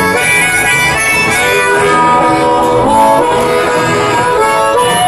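Two harmonicas playing a boogie-woogie tune together, with held and bending notes over a steady, rhythmic low accompaniment.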